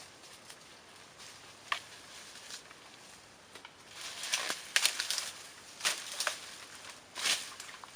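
Brush and dry leaves rustling and crackling as people work in forest undergrowth with sticks. It comes as a run of short, sharp bursts from about four seconds in.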